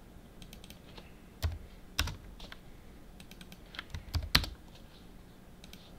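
Computer keyboard keys tapped in scattered, irregular clicks, a few at a time, the sharpest around two seconds in and just after four seconds.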